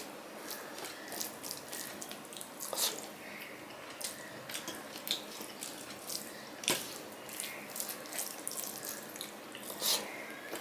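Fingers working puffed rice into curry on a metal plate: a steady run of wet crackles and clicks, with a few louder snaps about three, seven and ten seconds in.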